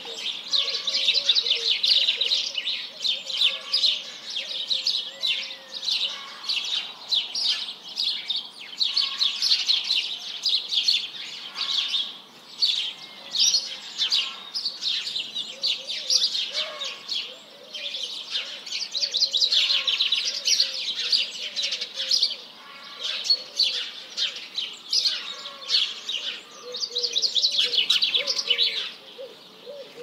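Several songbirds singing together: dense, rapid high-pitched chirping in phrases a few seconds long, with a lower warbling call running underneath.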